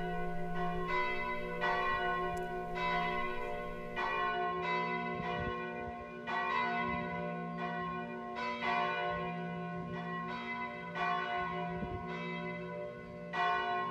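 Church bells ringing from the towers, a fresh strike about every second, each note humming on under the next.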